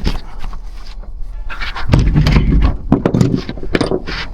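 Clattering and scraping of things being handled and moved about, with several sharp knocks.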